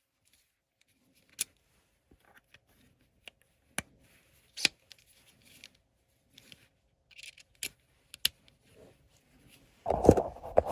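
Hands working on gas piping and its fittings: a handful of sharp clicks and small rustling handling noises, then a louder scraping clatter near the end.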